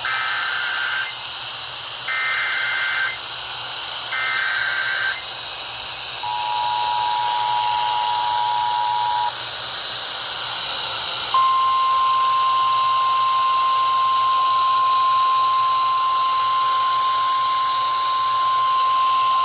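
Emergency Alert System tones heard over an FM radio broadcast. First come three roughly one-second bursts of screeching SAME data header, a second apart. Then comes about three seconds of the two-tone EAS attention signal, and about a second and a half later a single steady warning tone starts and holds for about nine seconds, all over steady radio hiss.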